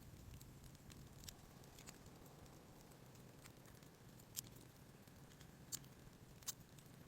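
Faint, sparse crackles of a wood-burning stove fire over a low steady hum, with three sharper pops in the second half.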